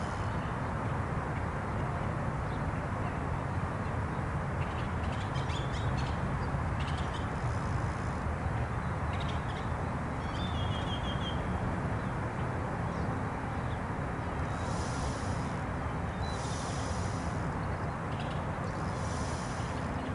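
Outdoor park ambience: a steady low rumble with birds calling. A few short chirps come in the middle, and from about two-thirds of the way through, short high calls repeat roughly every two seconds.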